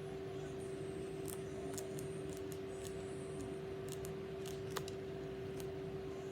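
Light clicks and ticks of a makeup brush being worked against a powder highlight palette, about a dozen in the middle of the stretch with one sharper tick near the end, over a steady low hum.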